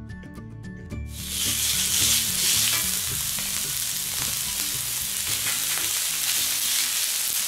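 Music ends about a second in. Then food sizzles loudly and steadily on a hot steel fire-plate griddle around a charcoal fire as raw meat strips are laid onto it.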